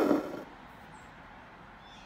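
Needle and dark embroidery thread being drawn through cotton fabric stretched in an embroidery hoop: a brief rasp at the very start, then only faint handling.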